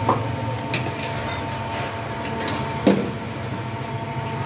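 Serving utensils clinking and knocking against a bowl and steel cooking pots, the loudest knock about three seconds in, over a steady mechanical hum with a thin high whine.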